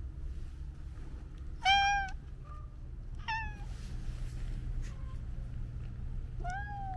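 Domestic cat meowing three times: a loud, drawn-out meow about one and a half seconds in, a shorter falling meow a second and a half later, and another starting near the end, over a steady low rumble.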